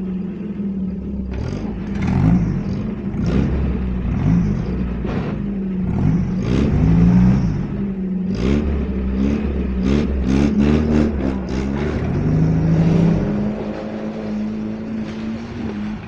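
Off-road trophy vehicle's engine, stuck nose-down in swamp water, revving up and down again and again as it tries to drive out, with short knocks and clatter in between.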